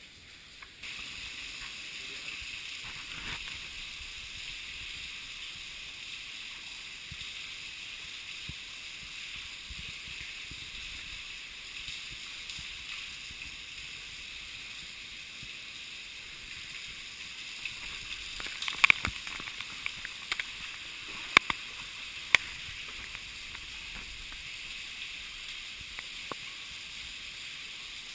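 Steady rushing noise of running water in a cave passage, broken by a quick cluster of sharp knocks about two-thirds of the way in and two more shortly after.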